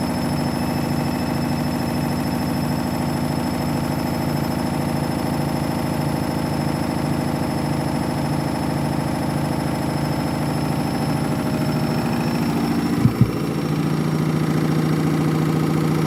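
Washing machine on its final spin with a badly unbalanced load: the drum spins with a loud, regular pulsing throb. About thirteen seconds in there is a brief knock, and the pulsing gives way to a steadier low hum.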